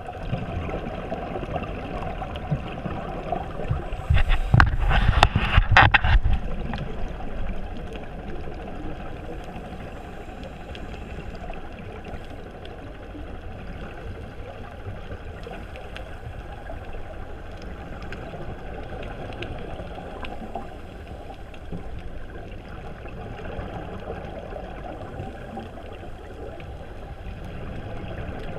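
Muffled underwater sound through a camera's waterproof housing: a steady low wash of water, broken about four seconds in by a loud rush of scuba exhaust bubbles that lasts about two seconds.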